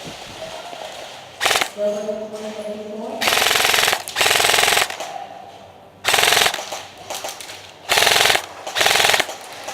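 Airsoft electric guns firing full-auto in about six short bursts, each a rapid rattle of shots under a second long. A steady pitched sound, a held voice or call, comes between the bursts about two seconds in.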